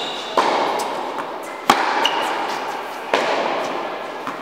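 Tennis balls struck by rackets during a baseline rally, three sharp pops about a second and a half apart with weaker ball bounces between, each echoing in a large indoor hall. Brief high squeaks of shoes on the hard court.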